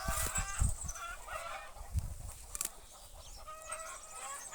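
Chickens clucking: a run of short, repeated calls, busiest in the first couple of seconds and thinning out after, with a few low knocks.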